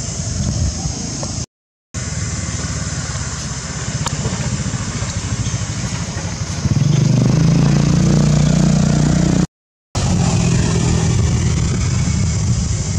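A motor engine running nearby, with a steady high-pitched hiss above it. The engine hum grows louder and steadier about seven seconds in. The sound cuts out for a split second twice.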